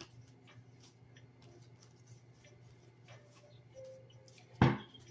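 Faint, scattered clicks of tarot cards being handled on a table over a low steady hum, with one sudden loud thump near the end.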